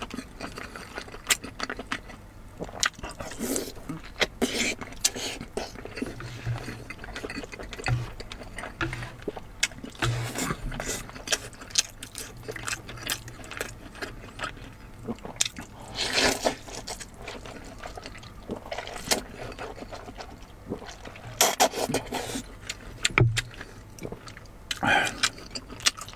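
Close-miked eating sounds of braised pork being chewed: wet, irregular chewing and mouth sounds with sharp clicks, and a few longer, louder bursts.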